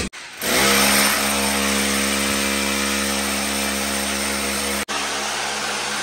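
Electric drill starting up and running steadily under load as it bores a hole through the wall. It stops for a moment near 5 seconds and then carries on.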